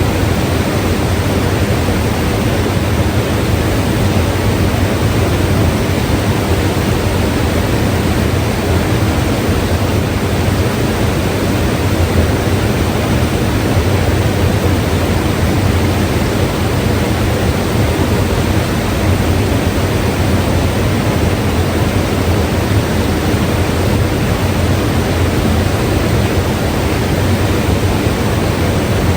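Mountain river rushing over rocks: a loud, steady roar of flowing water with no change throughout.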